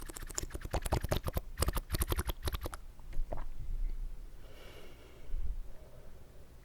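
Wet mouth sounds with water: a fast run of sharp clicks and smacks for nearly three seconds, a couple of lone clicks, then a soft slurp.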